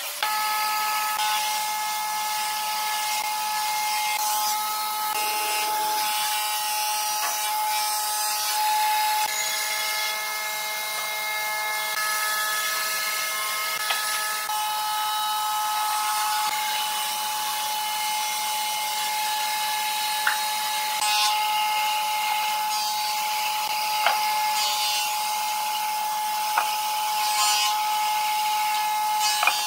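A steady high hum with hiss, with a few sharp taps of hand tools and boards knocking on a wooden workbench, the last several in the second half.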